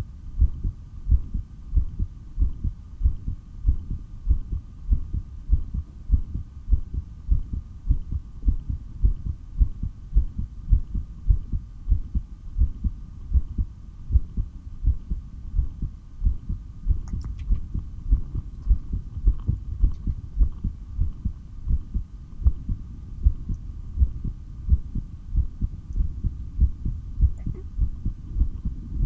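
Pounding human heartbeat picked up through a stethoscope: a steady rhythm of low thumps, with a faint steady hum behind it.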